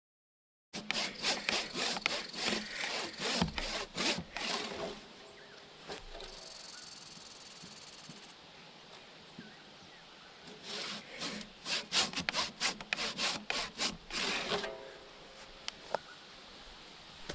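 Handsaw cutting through a wooden log: a run of quick back-and-forth strokes, a pause of several seconds, then a second run of strokes.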